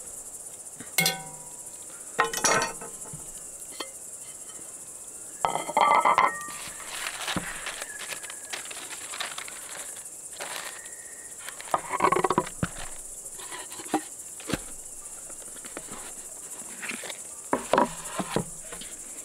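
Crickets chirping steadily, with intermittent clanks and knocks as a cast-iron pot and a bowl are handled and set down, the loudest a cluster of ringing knocks about six seconds in.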